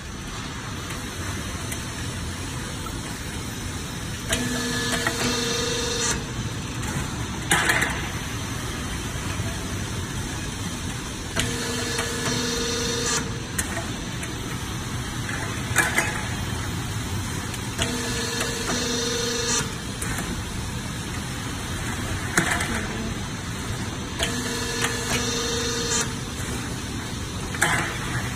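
Lock-seam pipe-making machine running over a steady hum, working in repeated cycles. Each cycle is a pitched whir of about two seconds followed by a sharp clank, coming roughly every seven seconds, four times.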